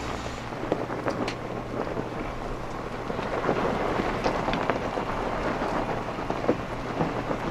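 Jeep Wrangler's tyres crunching and grinding over loose rock and gravel as it crawls up a steep eroded track, with many small crackles and knocks of shifting stones, over the low, steady note of the engine.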